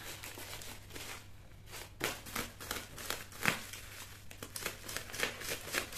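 Plastic packaging and thick bubble wrap crinkling as a parcel is unwrapped by hand, in irregular crackles that get busier about two seconds in.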